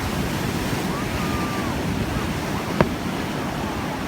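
Steady rush of ocean surf and wind buffeting the microphone, with a single sharp firework bang nearly three seconds in.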